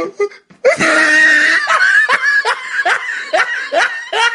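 High-pitched comic laughter: a long held cry, then a run of quick 'ha' bursts, about two or three a second, that stops suddenly near the end.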